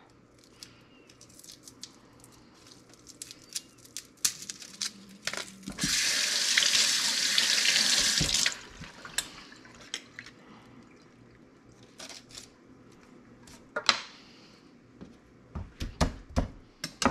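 Kitchen tap running into a stainless steel sink for about two and a half seconds while a peeled garlic clove is rinsed, after faint rustling of garlic skin being peeled off. Several sharp knocks of a chef's knife on a wooden cutting board near the end.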